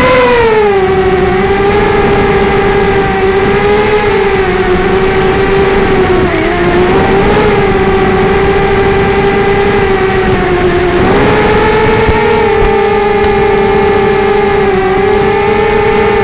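Peon230 quadcopter's Emax 1804 2300kv brushless motors and 5x3 propellers whining steadily in flight, the pitch wavering slightly with throttle and stepping up about eleven seconds in.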